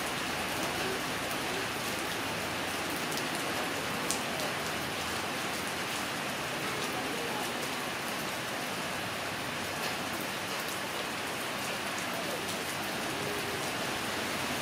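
Steady rain falling, an even hiss, with a single faint click about four seconds in.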